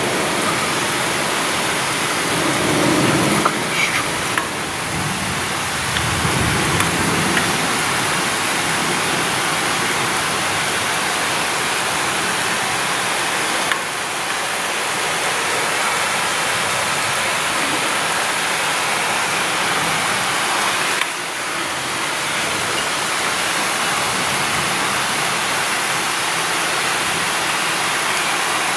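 Heavy rain pouring down in a thunderstorm, a steady, even hiss.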